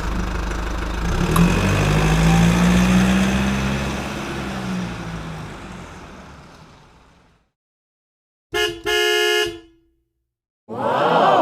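A motor vehicle's engine runs with its pitch rising, then fades away over several seconds. After a short silence a horn honks, one short toot and then a longer one. A brief sound that rises and falls in pitch follows near the end.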